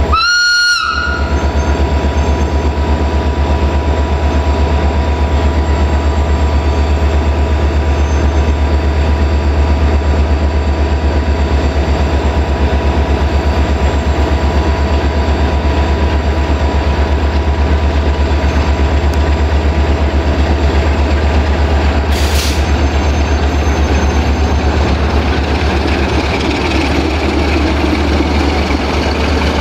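060-DA diesel locomotive with a Sulzer 12LDA28 engine idling with a steady deep drone. Near the end, a second 060-DA hauling passenger coaches rolls past, adding wheel-on-rail noise, and a sharp click is heard partway through.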